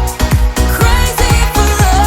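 Upbeat electronic pop background music with a steady kick-drum beat; a melody line comes in about halfway through.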